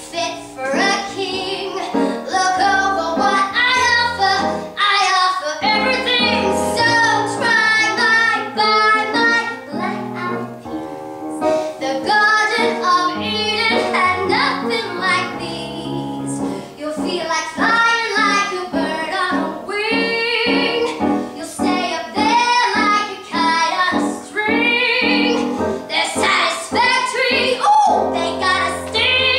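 A woman singing a musical-theatre song live, with vibrato on her held notes, over piano accompaniment.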